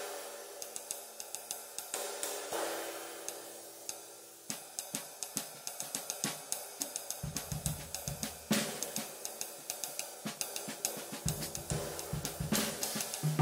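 Bosphorus Turk Flat Sizzle 19-inch ride (1650 g) played with the stick tip in a steady ride pattern, about three strokes a second, each stroke ringing into a lasting sizzling wash with no bell. About seven seconds in, a drum kit joins with bass drum and snare under the ride.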